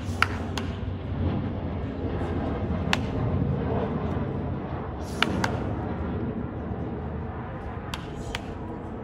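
Sharp cracks of a bat hitting tossed baseballs in toss batting, one every two to three seconds, some followed closely by a second knock, over a steady outdoor murmur.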